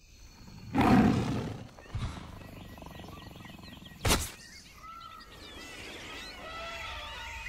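Television sound effects for a superpower scene. A deep roar-like rumble swells about a second in, a thud follows, and a sharp crack comes about four seconds in. After that, a string of short warbling high whines runs to the end.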